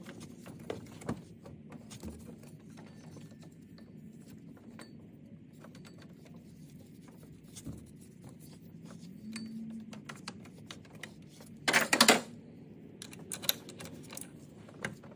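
Metal hand tools clinking and clicking against engine parts as a socket on an extension is worked at a pulley bolt. Scattered single clicks, with a short dense run of clicks about twelve seconds in as the loudest part and a few more clicks after it.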